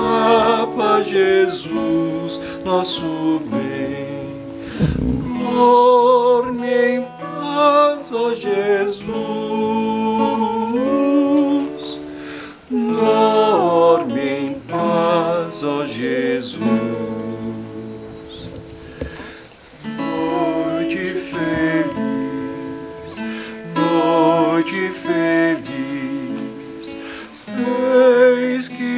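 Acoustic guitar playing a slow, gentle tune, with a voice carrying the melody without words, in a wavering, lullaby-like way.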